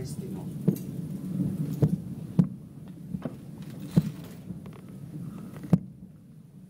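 Distant aerial firework shells bursting: a string of sharp booms about a second apart over a low rumble, the loudest two near the middle and about six seconds in.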